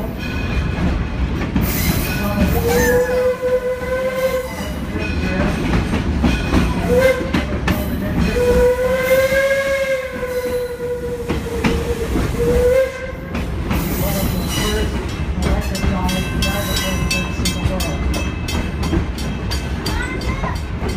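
Steam whistle of the Detroit & Lima Northern No. 7 locomotive, heard from the car just behind it: the end of one long blast at the start, then a long blast, a short one and a final long blast that wavers slightly in pitch, the long-long-short-long grade-crossing signal. Under it the train runs with a steady rumble, and rapid clicking of the wheels and running gear comes through in the last seconds.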